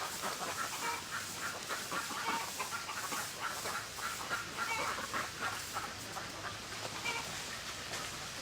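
A flock of domestic ducks quacking continuously, with many short overlapping calls.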